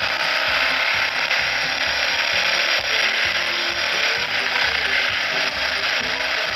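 Suzuki DR650 dual-sport motorcycle's single-cylinder engine running steadily as the bike is ridden along, with a chattering, mechanical clatter.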